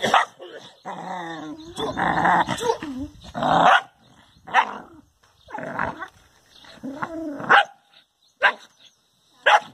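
A dog barking and growling repeatedly in aggressive, lunging bursts, about one bark a second, at its own reflection in a mirror, which it takes for a rival dog.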